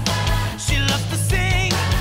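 Intro music: a rock-style song with a sung vocal line over a full band.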